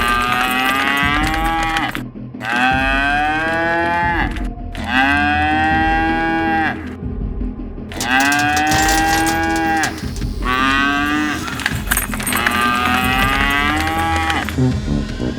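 Cattle mooing: about six long calls one after another, each lasting a second or two, over a steady low hum.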